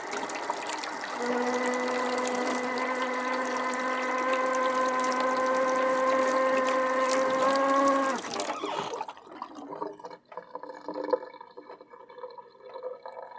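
Kitchen sink tap running with a steady humming tone over the rush of water; the tone rises slightly just before the water is shut off about eight seconds in. After that, drips and a faint trickle.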